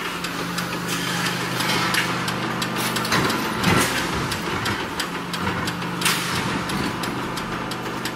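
Mechanical flywheel punch press running with a steady motor and flywheel hum, its ram striking again and again with sharp metallic knocks as it punches holes in steel racking uprights.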